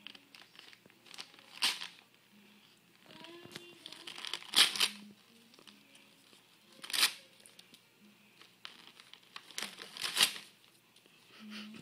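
Christmas wrapping paper crinkling as a toddler pulls at a present, with four loud short rips a few seconds apart as the paper tears off.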